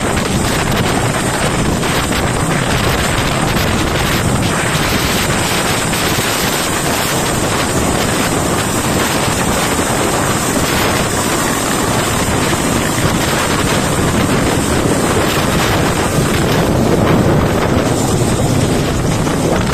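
Mi-8 helicopter running at full power on the pad and lifting off: a loud, steady rotor and turbine noise with a thin high whine above it, and wind from the rotor downwash buffeting the microphone.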